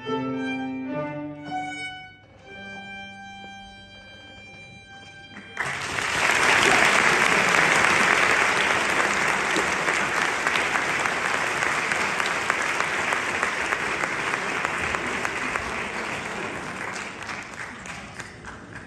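Violin with piano accompaniment plays the closing notes of a classical piece, ending on a held note. About five and a half seconds in, audience applause breaks out loudly and continues, easing off a little near the end.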